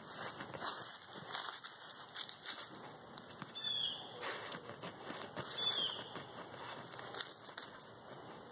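A dog digging in loose dirt with its front paws, scratching and scattering soil in quick, irregular bursts.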